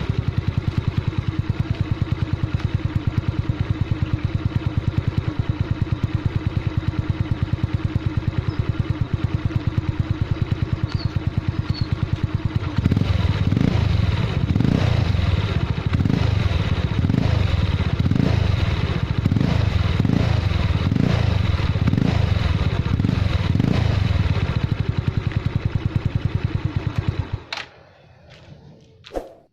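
Yamaha Mio Sporty scooter's single-cylinder four-stroke engine running through an Exos X-6 aftermarket muffler: idling steadily for about 13 seconds, then the throttle is blipped again and again, about once a second. The engine is shut off near the end.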